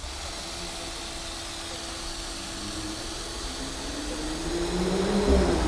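A passing motor vehicle in the street, its engine note rising in pitch and getting louder toward the end.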